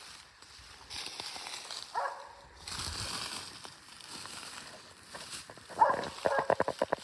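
Hunting dog barking: one bark about two seconds in, then a louder bark and a quick run of rapid barks near the end.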